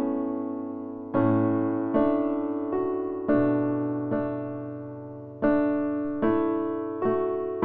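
Background music: slow solo piano, soft chords struck roughly once a second, each one fading out before the next.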